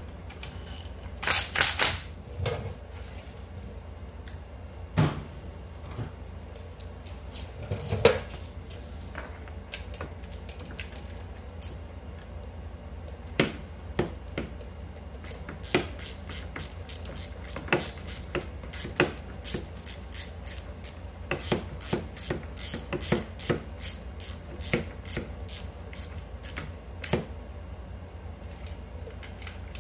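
A cordless power tool runs in one short burst about a second in, then a few single knocks follow. After that comes a long run of quick, irregular clicks from a hand ratchet tightening a bolt on the ATV's starter.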